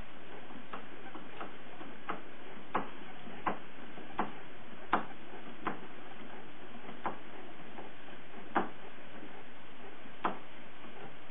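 Treadle potter's wheel clicking with each kick of the treadle, over a steady hiss. The sharp ticks come about every three-quarters of a second at first, then space out to one every second and a half or so.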